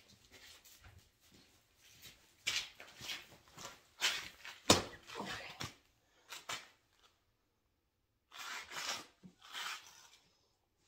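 Handling noises as an egg is set on a homemade flashlight egg candler: clothing rustle and fumbling, with one sharp click about five seconds in, then a brief lull and more rustling near the end.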